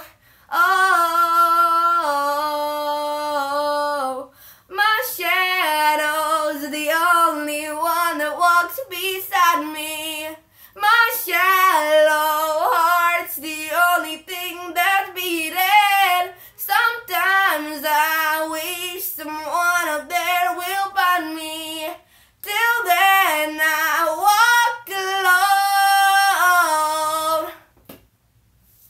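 An 11-year-old boy singing a cappella in an unbroken voice. It opens on a long held note, then moves through phrases that rise and fall, with short breaks for breath. The singing stops about a second before the end.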